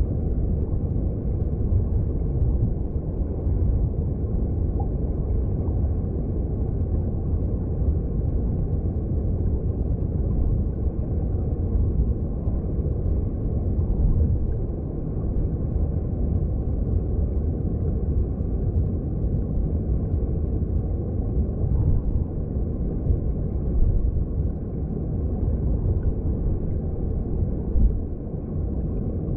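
Mountain stream heard underwater: a steady, muffled, deep rush of flowing water, with almost nothing in the high range.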